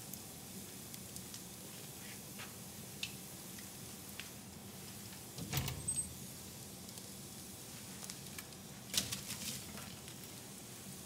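Wood fire burning in a fireplace: a steady soft hiss with scattered crackles and snaps. The loudest pops come in a cluster about five and a half seconds in and again about nine seconds in.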